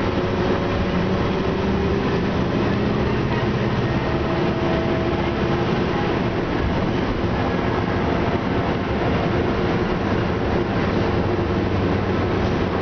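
Orion VII transit bus's Detroit Diesel Series 50 four-cylinder diesel and Allison B400R automatic transmission running, heard from inside the passenger cabin as a steady rumble with road noise. Faint tones within it shift slowly in pitch.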